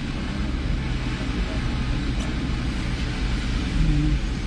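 Steady low rumble and hiss of a car driving on a wet road, heard from inside the cabin.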